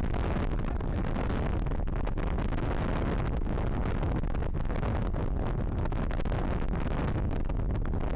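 Strong wind, over 22 knots, buffeting the microphone aboard a racing sailboat: a steady, heavy rumble with a rushing hiss over it.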